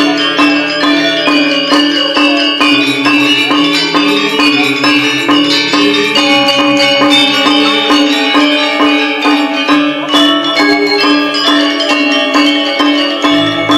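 Balinese gamelan ensemble playing a tabuh kreasi: bronze metallophones struck in fast, dense strokes over a steady ringing tone, with low notes changing every second or two.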